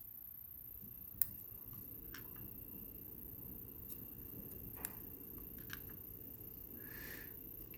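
A few light, sharp clicks and taps of small metal lock parts being handled, the loudest about a second in, with a short rustle near the end.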